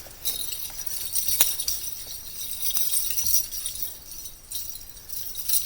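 Light metallic jingling and clinking, like small bells, keys or tags shaking, with a few sharp clicks; one click stands out about a second and a half in.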